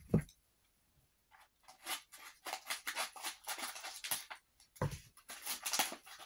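A parcel wrapped in a paper food-waste bag being cut and torn open by hand: a dense run of crackling, rustling paper and cutting sounds, with a dull thump just after the start and another about five seconds in.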